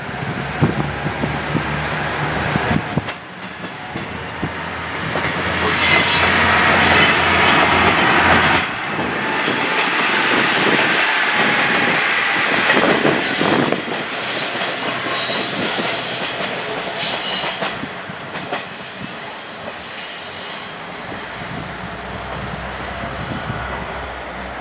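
KiHa 110 series diesel railcar pulling out and passing close by: the engine runs under power, then the wheels go by with high-pitched squealing through the middle stretch, and the noise eases as the train moves off.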